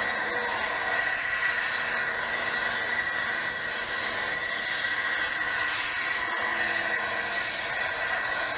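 Diesel farm tractor engine at full throttle under heavy load, pulling a weight sled. The sound is a dense, steady engine noise with no break.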